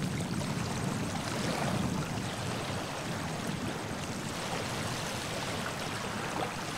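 River water flowing steadily: an even rushing noise.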